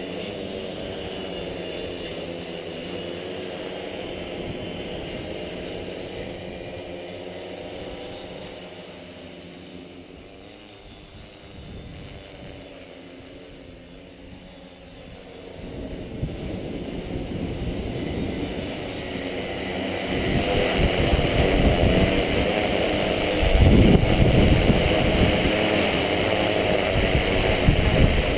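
Tarot T960 hexacopter's six electric motors and propellers humming in flight: loud close by at first, fading as it flies off into the distance, then growing loud again as it returns and hovers overhead, with a low rush of wind noise on the microphone near the end.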